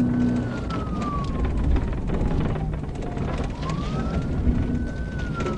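Police siren on a slow wail, rising, holding and falling twice, heard from inside a patrol car during a high-speed pursuit, over steady engine and road noise.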